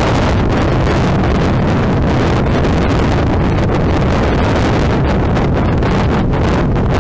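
Motorcycle on the move: steady wind rushing and buffeting over the microphone, with the bike's engine running underneath.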